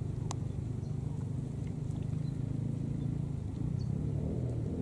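Steady low drone of an engine running, with one sharp click about a third of a second in.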